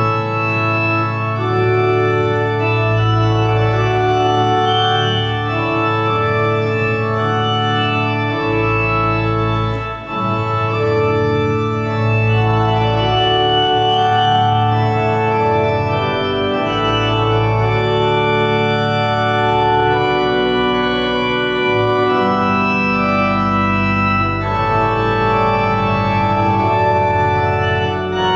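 Organ playing slow music in long held chords over a sustained bass, the chords changing every second or two.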